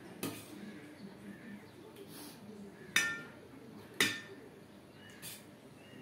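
Dishes and utensils clinking: four short clinks, the loudest two about three and four seconds in, the first of those ringing briefly.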